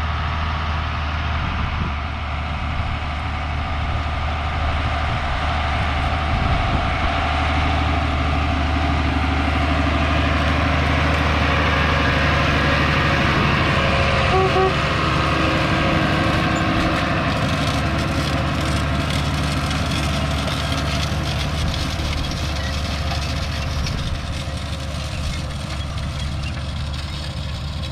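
International Harvester 86-series tractor's diesel engine running steadily under load while it pulls a planter. It grows louder as the tractor comes up and passes close about halfway through, then fades as it pulls away.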